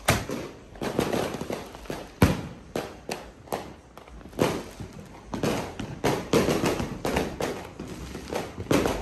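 Firecrackers and fireworks going off: a string of sharp bangs at irregular intervals. The loudest crack comes about two seconds in, and the pops come in quicker clusters in the second half.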